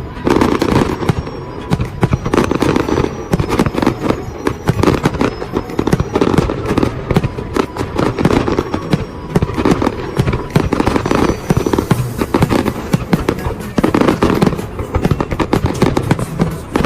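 Fireworks display: a dense, continuous run of bangs and crackling bursts, many each second.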